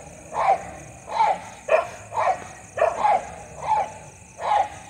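Dogs barking at each other in a steady run of about seven barks, roughly one every two-thirds of a second.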